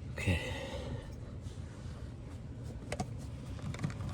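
A few faint sharp clicks and taps of a pry tool working at a plastic seat clip, one clearer click about three seconds in, over a low steady hum.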